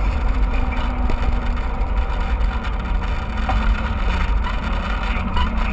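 Steady low rumble of wind buffeting the microphone, with the rolling noise of a mountain bike being ridden.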